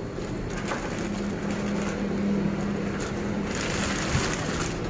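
Hands scooping and pressing damp tofu pulp into a plastic-lined bucket, the plastic sheet crinkling, with a soft thump about four seconds in. A steady low engine hum runs under it through the middle.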